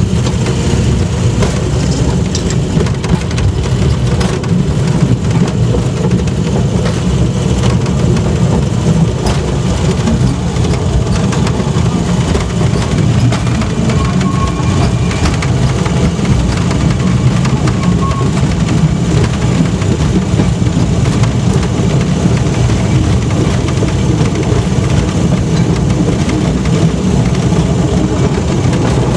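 Engine of a rail-converted Land Rover running steadily under way on 2 ft gauge track, with the rumble of its running gear, heard from inside the cab.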